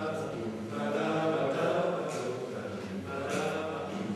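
Mixed choir singing a cappella, sustained voices with sharp consonants cutting through, in a reverberant church.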